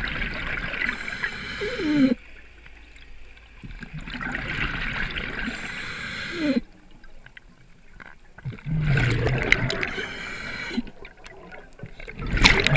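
Scuba diver breathing through a regulator underwater: four bursts of exhaled bubbles rushing and gurgling, each about two seconds long and coming roughly every four seconds, with quieter gaps between.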